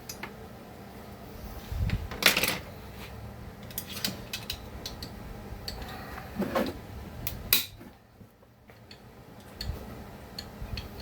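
Metal hand tools clinking and knocking against chainsaw parts during disassembly, an uneven run of clicks and clatters. Two sharper knocks stand out, the loudest about two seconds in and another near the middle.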